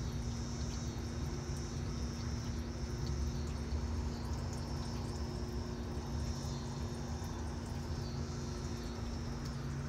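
Outdoor ambience of a steady high-pitched insect chorus over a low rumble and a steady low hum.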